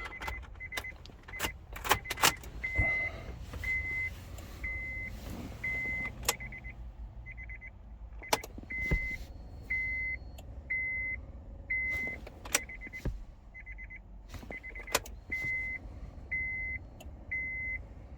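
A single-pitched electronic chime beeping about once a second, stopping briefly twice, over sharp clicks and rattles of car keys being handled and swapped.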